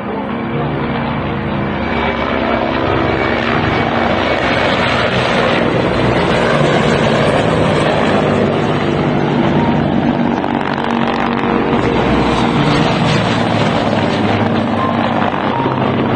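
Helicopter flying low and loud, a dense rotor and engine noise with steady tones in it, building over the first few seconds and then holding steady.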